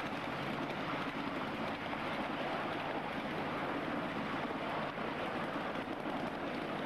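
Steady rushing rumble of a ride-on miniature railway train rolling along its narrow-gauge track.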